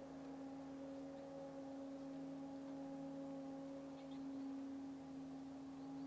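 A steady, even droning tone with overtones, holding one pitch throughout.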